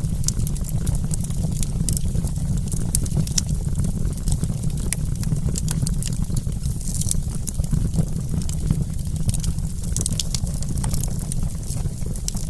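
Campfire burning, with a steady low rumble of the flames and many sharp, irregular crackles and pops from the burning wood.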